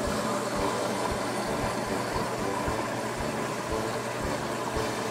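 Washing machine running: a steady mechanical hum and churn with regular low thumps, about three a second, as the drum turns.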